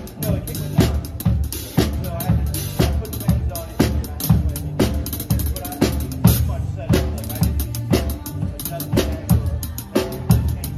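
Drum kit played in a steady groove, with kick, snare and cymbal strokes repeating in an even rhythm.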